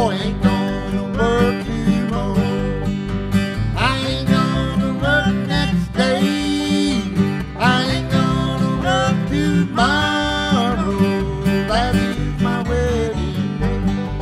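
Old-time string band playing an upbeat tune on banjo, acoustic guitar and washtub bass, with the bass thumping steadily on the beat.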